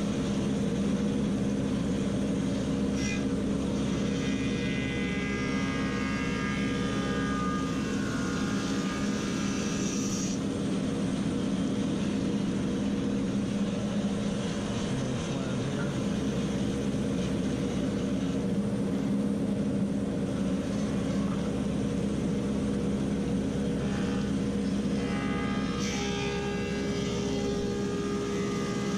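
Woodmaster 725 thickness planer running steadily while planing staghorn sumac slabs. Twice a higher-pitched whine rises over the hum, once early and again near the end.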